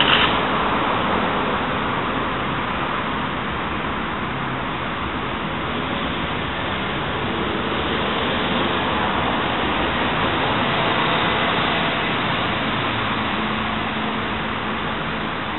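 Steady, even rush of street traffic noise, with a brief click at the very start.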